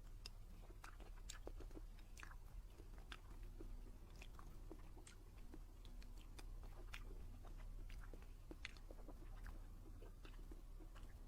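Close-miked chewing and biting of a soft dessert, with many short, wet mouth clicks scattered irregularly throughout.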